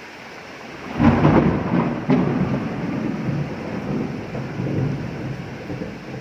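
Steady rain hiss, then a clap of thunder breaks in about a second in, with a sharp crack a second later, and rumbles on, slowly fading.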